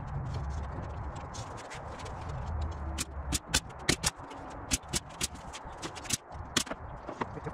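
Pneumatic nail gun firing nails into half-inch MDF panels: a string of sharp clacks at uneven intervals, most of them from about three seconds in.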